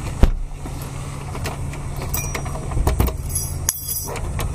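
A sharp knock about a quarter second in, then keys jingling and clicking at a door's knob lock as the room door is locked, over a steady low hum.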